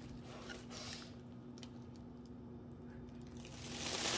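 Paper and card hang tags being handled: scattered light clicks and taps, then louder rustling near the end, over a faint steady hum.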